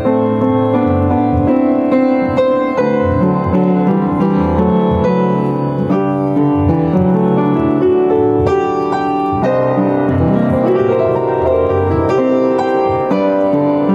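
Solo piano playing a melody over sustained chords, with notes struck in steady succession.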